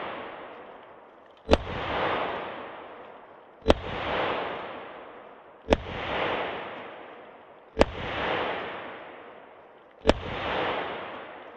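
.38 Special revolver firing five shots about two seconds apart. Each shot is followed by a long echo that dies away before the next.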